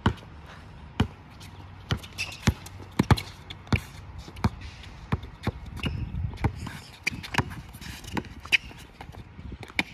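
A basketball being dribbled on a hard court: a series of sharp bounces, irregularly spaced, about one to two a second.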